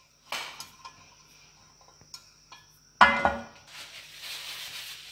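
Metal frying pan knocking and scraping on a gas stove's grate as it is tilted to spread oil, with a few small clicks and one loud clank about three seconds in.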